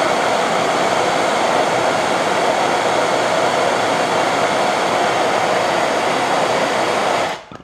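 Handheld propane and MAPP gas torches burning full on with a steady rushing hiss, heating copper pipe ends toward cherry red. The sound cuts off suddenly near the end.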